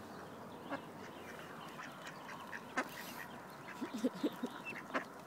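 Mallard ducks feeding, giving a quick run of short, low quacks about four seconds in, with a few sharp clicks scattered through.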